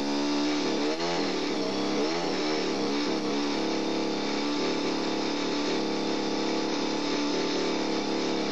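Two-stroke chainsaw cutting into a very large tree trunk. Its engine speed wavers up and down for a few seconds, then holds steady under load.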